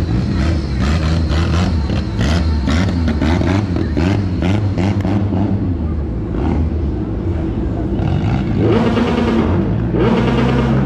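Small hatchback's engine revving hard in quick repeated pulses while the car is driven balanced on two side wheels, then running at high revs as it turns on the asphalt. A louder rushing noise comes in about eight and a half seconds in.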